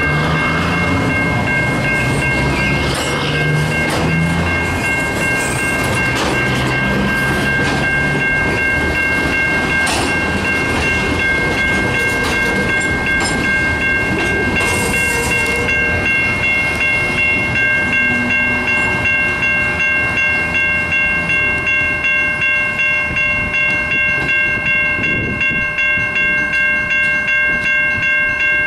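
Freight train cars rolling slowly past, with wheels clattering on the rails. Over it a grade-crossing bell rings steadily, its strokes coming about twice a second in the second half.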